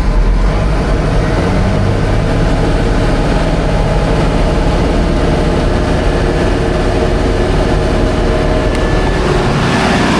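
Farm tractor engine running steadily under load, with the loud drone of the PTO-driven machinery blowing chopped corn silage up into a tower silo.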